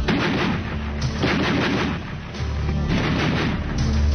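Browning Automatic Rifle firing three short bursts of rapid automatic shots, over a low rumble.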